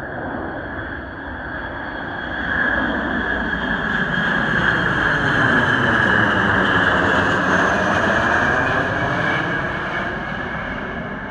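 Boeing KC-135R Stratotanker's four CFM56 (F108) turbofan engines as the jet passes low overhead: a loud jet rumble with a high fan whine and a sweeping, phasing tone. It builds over the first couple of seconds, is loudest around the middle and eases a little near the end.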